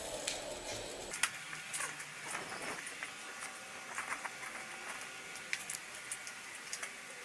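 Scattered light clicks and taps at irregular intervals over a faint hiss, the small handling noises of kit being moved about by hand; a low rumble fades out about a second in.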